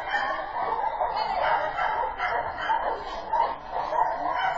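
Dog barking repeatedly.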